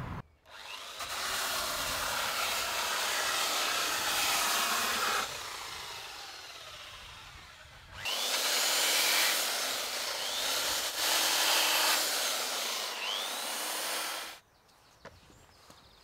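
Electric power tools working timber boards in two long stretches; the second is a Makita belt sander run along a wooden board, its pitch rising and falling as it goes. It stops suddenly near the end.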